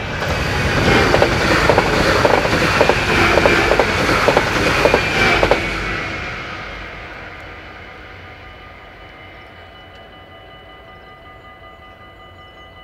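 A train passing the level crossing, its wheels clicking over the rail joints. It is loudest for the first five or six seconds and then fades away.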